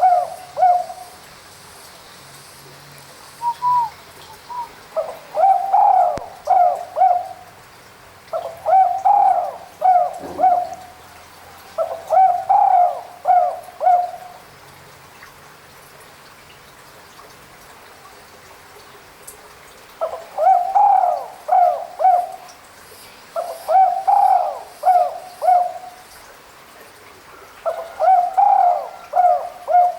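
Spotted dove cooing: a repeated phrase of several short coos, heard six times with a long pause midway, the territorial call used to lure a rival.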